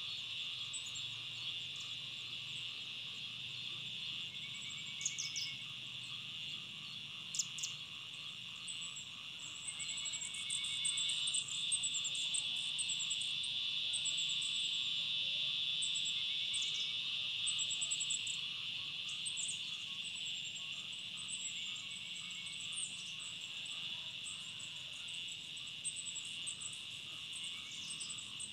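Steady high drone of a chorus of insects, swelling a little about halfway through, with thin high chirps and a short trill every few seconds over it.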